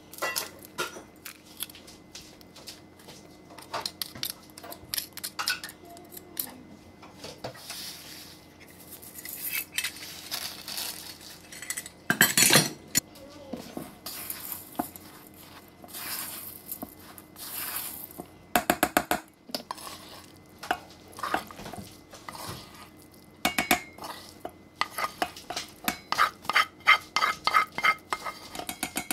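Utensils clinking, knocking and scraping against a stainless steel mixing bowl and a frying pan, with a quick run of rapid, ringing metallic taps near the end as cooked eggplant and onion is scraped from the pan into the bowl.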